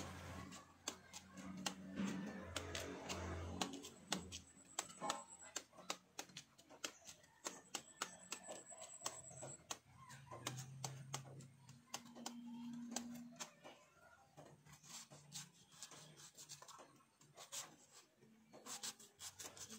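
Kitchen knife peeling the skin off an unripe green mango, a quiet run of small scrapes and clicks as the blade cuts along the fruit; near the end it shaves thin slivers into a stone mortar.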